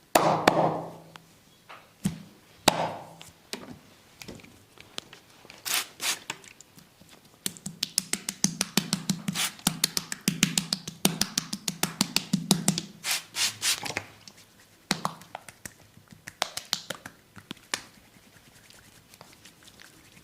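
Hand massage percussion on bare skin: a loud slap at the start, then scattered single strikes, then a fast run of rapid tapping strokes, about five a second, for several seconds, and a few last strikes near the end.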